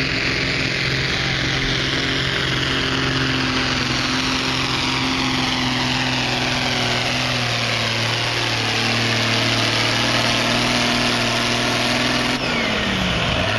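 International 784 pulling tractor's diesel engine running hard under load as it drags the weight sled. The engine note is steady and sags slowly in pitch, then drops off sharply near the end.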